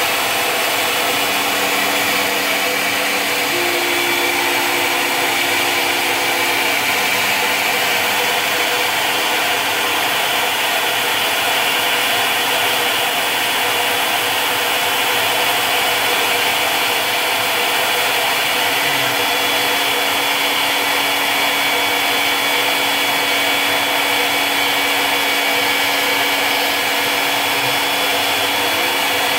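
CNC Tensilkut III tensile-sample machine running steadily, its spindle cutter milling a wood composite strip: an even cutting hiss with a steady high whine on top.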